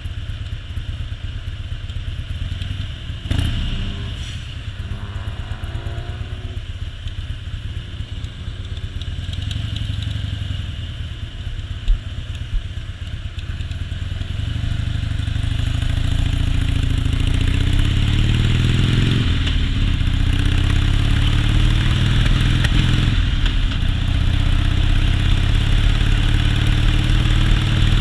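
Harley-Davidson Softail V-twin engine running under way with wind noise. After a steadier first half it grows louder and rises in pitch as the bike accelerates, dropping at gear changes about 19 and 23 seconds in.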